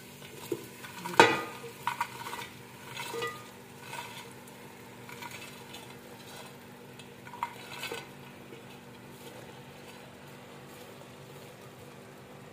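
Chopped cauliflower tipped off a ceramic plate into an aluminium pot of hot fried masala, with a sharp knock of the plate on the pot rim about a second in and scattered clicks and scrapes until about eight seconds in. After that the masala sizzles faintly and steadily.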